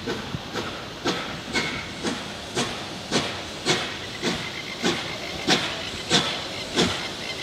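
Steam locomotive 3801, a NSW C38 class Pacific, chuffing as it approaches slowly: sharp exhaust beats a little under twice a second, with a steady hiss of steam between them.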